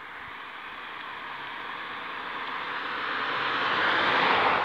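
A road vehicle approaching and passing close by, its tyre and engine noise rising steadily to a peak near the end and then falling away.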